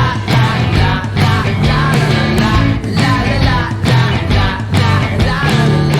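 Rock music with a steady drum beat, played loud.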